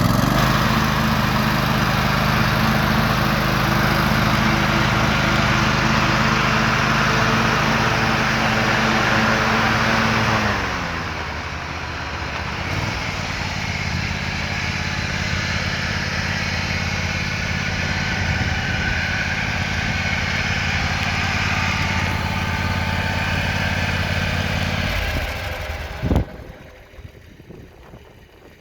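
John Deere X324 riding mower engine running at high speed, throttled down about ten seconds in and running slower, then shut off near the end with a sharp knock as it stops.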